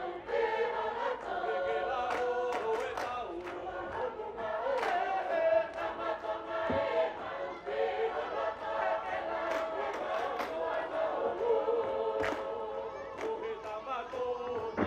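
Tongan lakalaka: a large mixed group of student dancers singing in several voice parts, with long held notes, and scattered sharp hand claps through the song.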